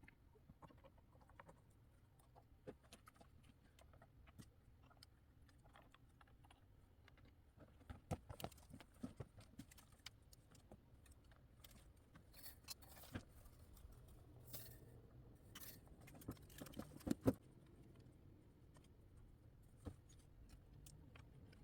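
Near silence broken by scattered small clicks, taps and rustles, with a sharper knock about three-quarters of the way through.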